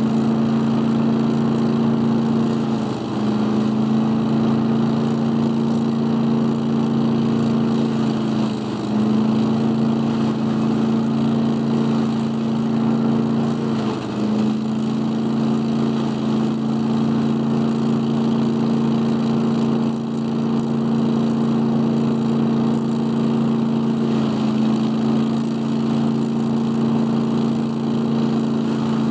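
Scag Giant Vac leaf vacuum running steadily on its 18 hp Briggs & Stratton Vanguard engine, sucking up leaves through its 10-inch hose. The engine note dips briefly a few times.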